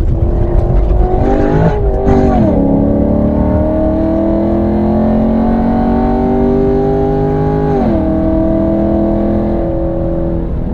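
Chevrolet SS (Holden Commodore VF) 6.2-litre LS3 V8 pulling hard. The revs climb, fall sharply about two seconds in at an upshift, then climb slowly for about five seconds. They fall off again about eight seconds in and hold lower near the end.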